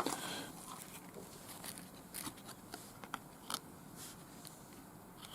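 Trading cards from a freshly opened foil pack being handled: a brief wrapper rustle at the start, then faint scattered light clicks and rustles as the cards are shuffled through.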